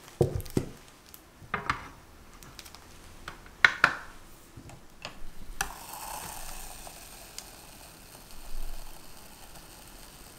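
A few sharp clicks and knocks as a digital kitchen scale and baking ware are handled. Then, from about halfway, thick chocolate cake batter pours in a steady stream into a parchment-lined cake pan with a soft, even hiss.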